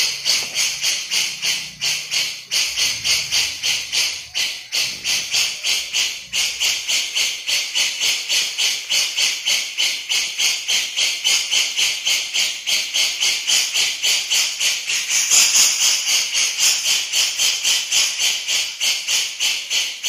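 Cucak jenggot (grey-cheeked bulbul) calling in its rapid 'besetan' chatter: a long run of high, raspy notes repeated about three to four times a second, a little louder about three-quarters of the way through.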